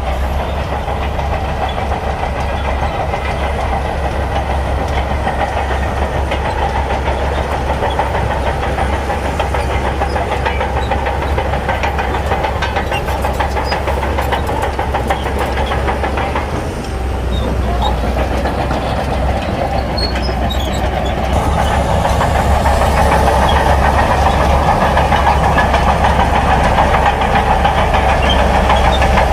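Shantui bulldozer's diesel engine running steadily at work. The sound dips briefly a little past halfway, then grows louder and stays louder for the last third.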